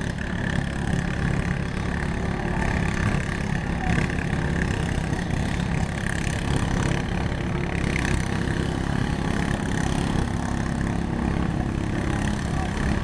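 Several lawn mower engines running together in a steady din.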